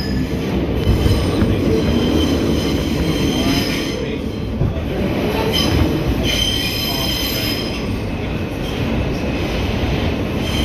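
R160B subway train running on the rails, heard from inside the car: a loud, steady rumble with high-pitched wheel squeal near the start and again for over a second about six seconds in.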